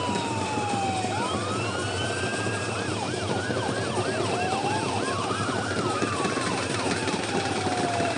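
Siren wailing: a tone slides slowly down, then sweeps back up, breaks into a fast warble of about two rises a second in the middle, then climbs and falls slowly again. A steady background hum runs underneath.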